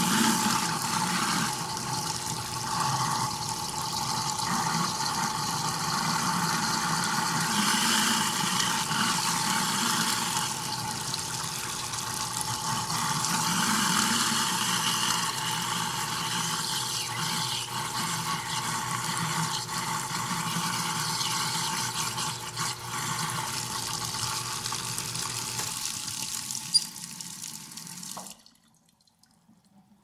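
Washing machine running, water churning in the drum over a steady tone. Just before the end there is a single click, and the sound stops abruptly.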